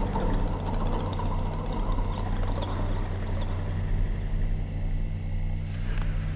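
A low, steady rumbling drone made of several constant low pitches, even in level throughout.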